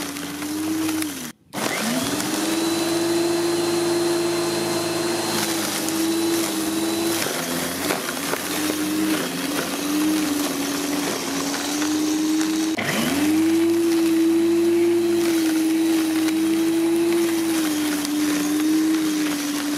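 Parkside PRM 1300 A1 electric rotary lawnmower's 1300 W motor running with a steady whine while cutting grass over 20 cm tall at the 60 mm height, its pitch wavering under the load. It drops out about a second in and climbs back up to speed, and near thirteen seconds it dips and climbs back again.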